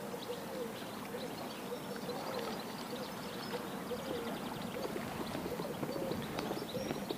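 Faint outdoor ambience: a steady low hiss with birds chirping faintly high up and a short low call repeating about twice a second.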